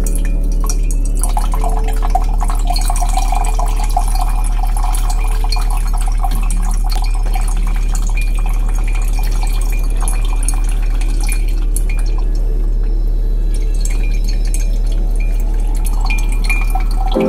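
A steady deep hum tone, a 'copper frequency' drone, under a continuous patter of water drips and trickling.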